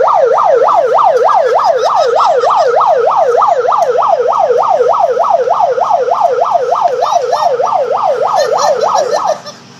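Bullhorn's built-in siren sounding a loud, fast yelp, its pitch sweeping up and down about three to four times a second, then cutting off abruptly near the end.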